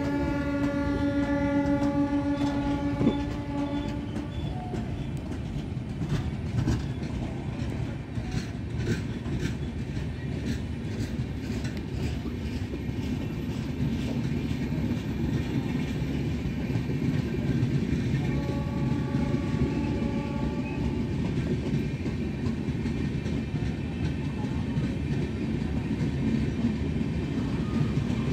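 Kerala Express passenger coaches rolling through at speed: a steady rumble of wheels on rail with sharp clicks over the rail joints. A train horn sounds for about four seconds at the start and again, more faintly, for a few seconds past the middle.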